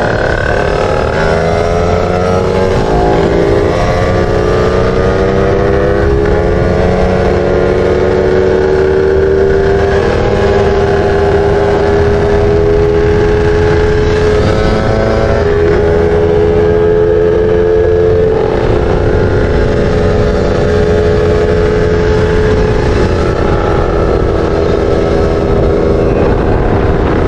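Motorcycle engines running hard at high revs while riding side by side down a straight, the engine pitch climbing over the first several seconds and then holding steady, with wind rushing over the microphone.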